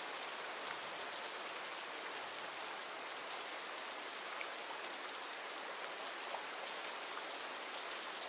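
Steady rain falling in a forest: an even hiss of rain, with a few faint single drops standing out.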